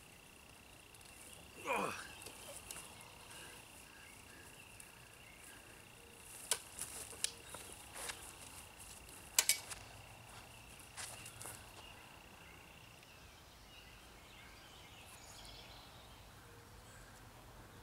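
A steady high insect trill, like a cricket's, runs through the first part and stops a little past the middle. About two seconds in there is a quick downward whoosh, and through the middle come a scatter of sharp clicks and knocks as the landing net and fishing gear are handled on the grass.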